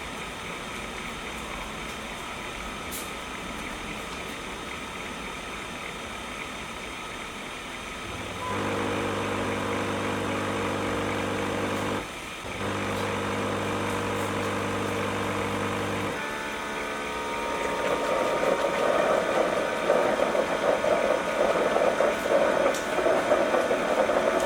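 Xiaomi Mihole M9 Pro Max robot vacuum running with a steady whir. About eight seconds in, a low hum with a clear pitch joins and drops out briefly once. From about sixteen seconds in, a louder, rougher whir takes over.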